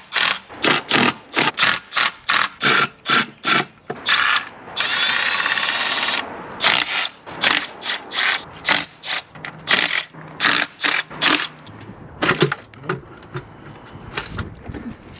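Cordless power driver backing out the intake manifold bolts on an LS V8, in quick short bursts about three or four a second, with one continuous run of about a second and a half around five seconds in. The bursts thin out and stop after about eleven seconds.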